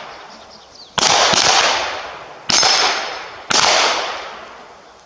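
Gunshots at a shooting range: three loud shots about a second apart, the first followed closely by a couple of quicker cracks, each one trailing off in a long echo.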